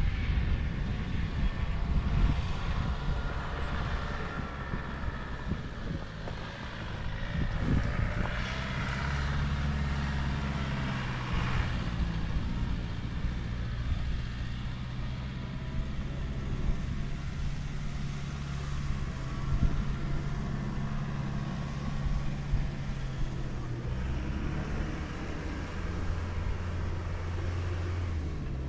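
Off-road vehicle engine running under way. Its note changes about a quarter of the way in, holds steady for a long stretch, then settles lower near the end.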